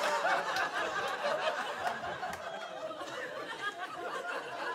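Comedy club audience laughing after a punchline, the laughter slowly dying down.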